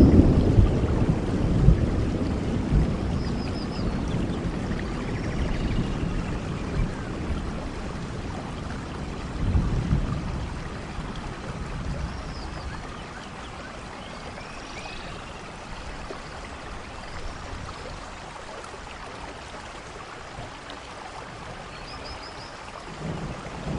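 Rainforest thunderstorm: steady rain with rolling thunder. A rumble fades over the first few seconds, a short one comes about ten seconds in, and a new one builds near the end. A few faint high chirping calls can be heard over the rain.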